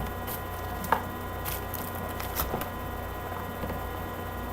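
A few light taps and clicks of trading cards and card boxes being handled and set down on a table, over a steady electrical hum.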